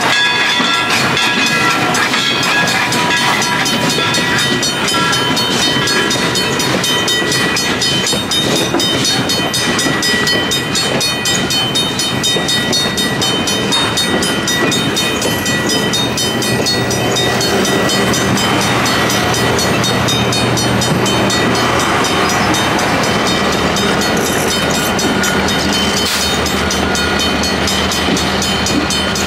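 Passenger train running on rails: a steady rolling rumble with fine rapid clicking. Several high, steady squealing tones sound through the first half and fade out, and a low steady hum comes in later.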